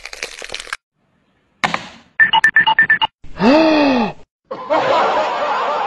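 A Bengal cat knocks a box off a shelf: a short rattling clatter, then a sharp thud. Comic sound effects follow, first a quick run of beeps and then a cartoon-style pitch glide that rises and falls, before a longer noisy stretch.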